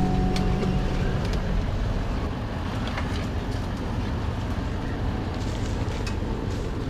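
Four-wheel drive driving slowly over a rough dirt track: a steady low rumble with scattered knocks and rattles. Background guitar music fades out about a second in.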